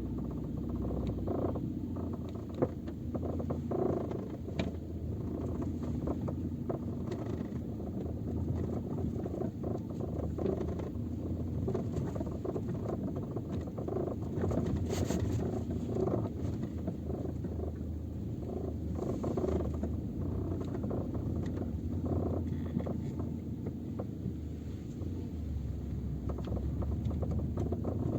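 Peugeot 407 cabin noise heard from the rear parcel shelf while rolling slowly: steady low road rumble with frequent irregular small knocks and rattles from the rear seatbacks. The knocking comes from the rear seatback locks, whose latch tongues are loose on their striker loops and move up and down.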